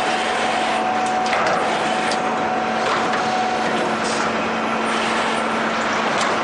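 LPPP1300 roll-forming line running, with corrugated steel panel sheet feeding through its forming rollers: a steady mechanical noise with a constant low hum and a few light clicks.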